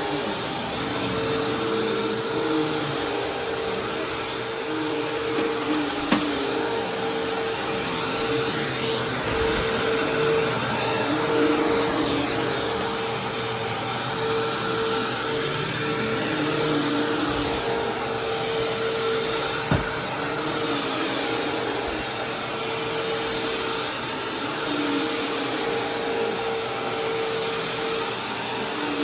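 Bissell vacuum cleaner running steadily on carpet, a constant motor hum with a high whine, its level rising and falling slightly. Two short knocks sound, about six seconds in and again near twenty seconds.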